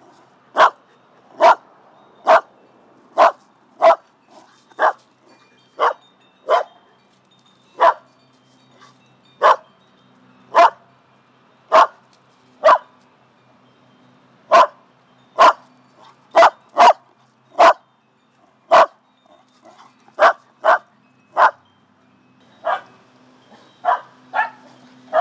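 Shetland sheepdog barking repeatedly: short, sharp barks about once a second, now and then two in quick succession, with a couple of brief gaps.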